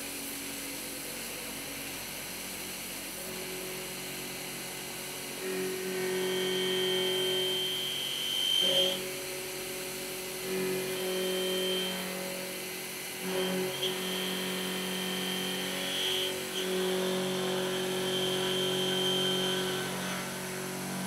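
Voortman V310 plate machine's milling spindle cutting a pocket in steel plate with an end mill. A steady hiss at first, then from about five seconds in a pitched whine with a high singing tone that cuts out briefly several times and comes back at the same pitch.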